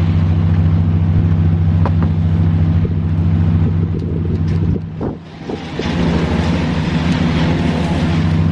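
Steady low drone of a running motor or engine with an even hum, dropping away briefly about five seconds in before carrying on.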